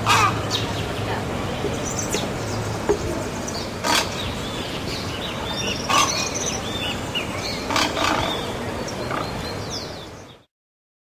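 Heron giving harsh squawking calls, about four of them roughly two seconds apart, over steady outdoor background noise with faint small-bird chirps; the sound fades out to silence near the end.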